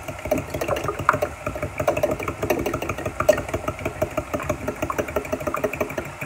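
A fork beating eggs in a glass bowl: rapid, steady clicking and tapping of the metal tines against the glass.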